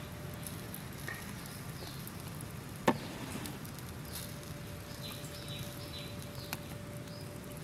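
Chicken roasting on a wire grill over charcoal: a low crackle with scattered ticks as fat drips onto the coals, and one sharp pop about three seconds in. Short high chirps come a few times in the second half.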